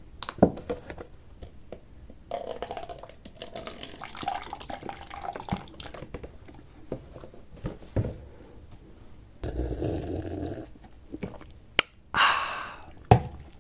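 A drink of apple juice being opened and drunk: a few clicks and knocks from the container, stretches of liquid and swallowing sounds, and a breathy exhale a little before the end.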